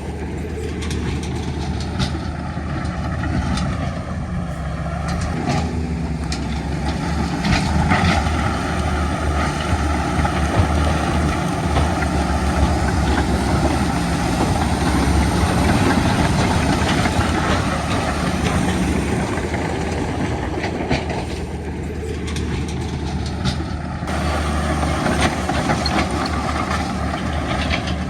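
Heavy diesel earthmoving machinery running steadily under load, with occasional metallic clanks.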